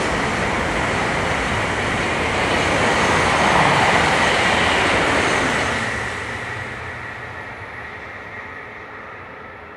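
Shinkansen bullet trains passing at high speed on an elevated viaduct: a steady rushing noise of wheels and air, loudest about four seconds in, then fading away as the trains recede.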